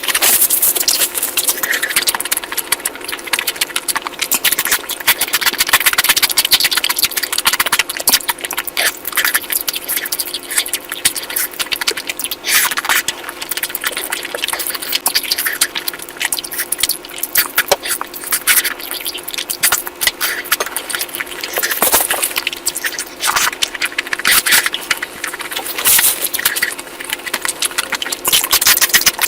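Close-miked eating sounds: a steady stream of wet chewing, lip smacking and crackling mouth clicks as someone eats curry.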